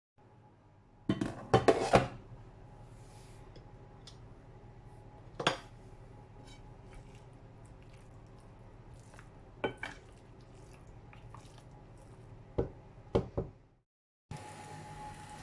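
Dishes and cutlery clinking and clattering in a few separate bursts: a quick cluster about a second in, then single knocks spaced a few seconds apart.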